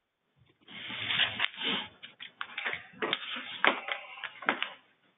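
Irregular rustling and clicking noises coming over a telephone conference line, stopping shortly before the end.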